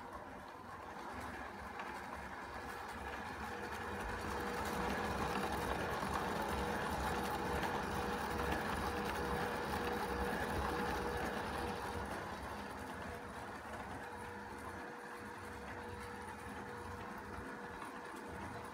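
Bachmann G-scale Thomas locomotive's small electric motor and gearbox running, with a steady whine, powered from batteries through an RC motor controller. It grows louder for several seconds in the middle, then eases.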